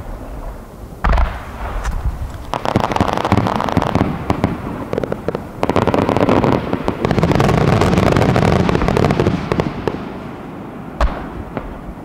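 Aerial fireworks shells bursting. A single loud boom comes about a second in, then a dense barrage of many rapid bursts with crackling and rolling rumble builds and fades over several seconds, and another sharp boom comes near the end.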